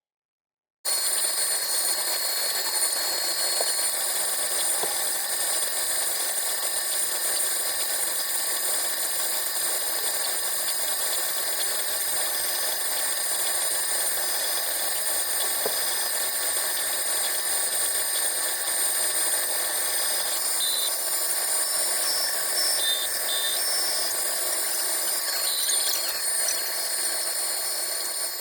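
Glowforge laser cutter running an acrylic cutting job: a steady mechanical whir with several fixed tones, and a few short high-pitched tones near the end.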